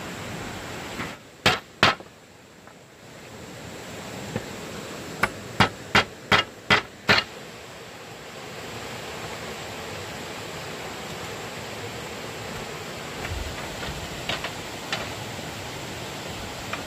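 A hand tool striking wood during shelf building: two sharp blows, then six in quick succession at about three a second, then a few faint taps near the end. A steady hiss runs underneath.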